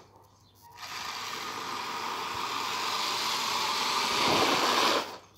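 Homemade 3D-printed RC crawler's electric drive motor and gears whirring as it drives over asphalt, growing louder as it approaches, then cutting off suddenly about five seconds in.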